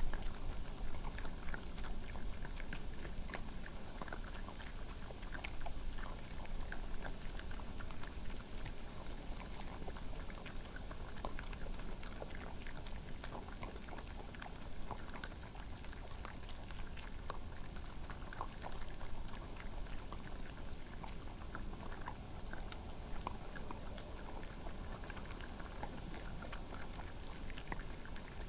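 Badgers and red foxes chewing peanuts: a steady scatter of small crunches and clicks.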